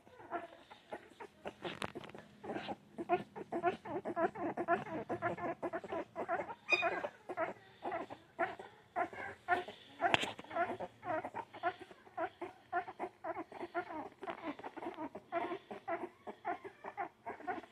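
Young puppies whimpering and squeaking: many short, high calls overlapping in quick succession, with a sharp click about ten seconds in.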